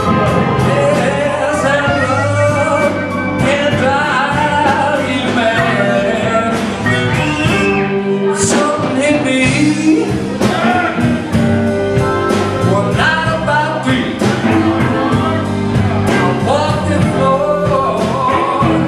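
Live blues band playing, with drum kit and electric guitar and a bending lead melody line over them, steady and loud.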